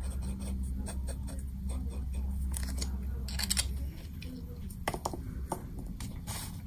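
Fine nib of a Platinum 3776 fountain pen scratching across paper in short writing strokes. After that come a few light clicks and taps as the pen is set down on the desk.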